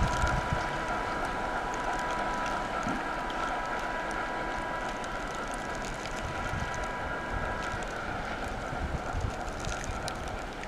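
ChME3 diesel-electric shunting locomotive running, a steady noisy rumble with a thin high whine laid over it. One strand of the whine drops out near the end.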